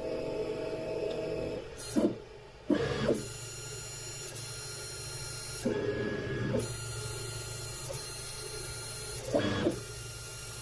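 Robox Dual 3D printer running at the start of a print: a steady fan hum with a thin high whine, and the print head's stepper motors whirring in short moves about two, three, six and nine and a half seconds in.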